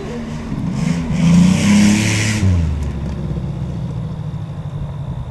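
A derby car's engine revving hard, climbing in pitch for about two seconds under a rushing hiss, then dropping back to a lower, steady run.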